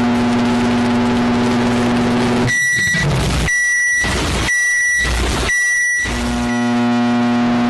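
Microwave oven running with a steady electrical hum that stops about two and a half seconds in, followed by four short high beeps about a second apart, the end-of-cooking signal; then the hum starts again.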